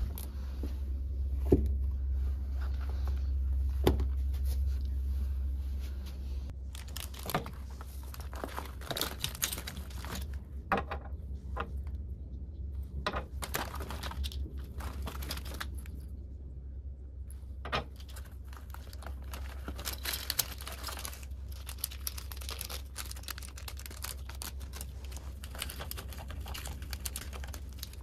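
Things being unpacked by hand: rustling of a cloth bag and packaging, with many small clicks and knocks as bottles and containers are set down on a granite countertop. A steady low hum runs underneath, louder in the first six seconds, where two sharp knocks sound.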